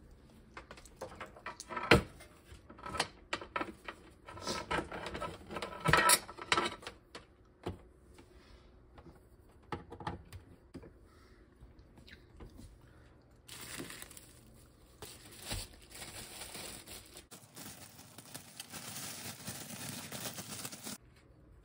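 Sharp clicks and knocks as a two-slice pop-up toaster is handled, the loudest two about four seconds apart. For the last several seconds a plastic bread bag crinkles.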